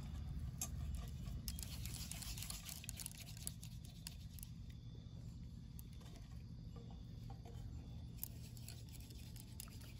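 Hands rolling and rubbing soft rice-flour dough between the palms over a floured steel plate: a faint rubbing rustle with light scattered clicks, over a low steady rumble.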